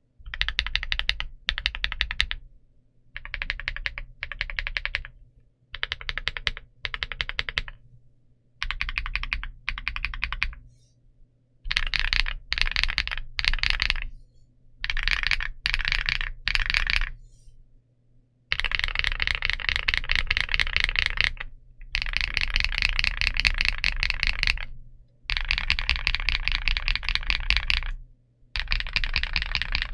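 Typing on an Akko Mod 007 V3 mechanical keyboard with Princess linear switches on an FR4 flex plate, under PBT dye-sub cherry-profile keycaps. Short bursts of keystrokes with brief pauses give way, about 18 seconds in, to longer runs of fast continuous typing.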